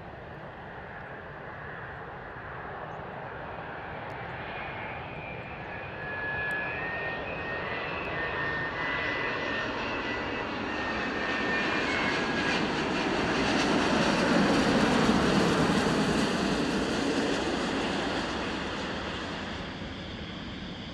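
Airbus A330-900neo airliner on final approach with its Rolls-Royce Trent 7000 turbofans at landing power. The engines run with a high whine over a rising roar that grows loud about two-thirds of the way through as the jet passes, then fades.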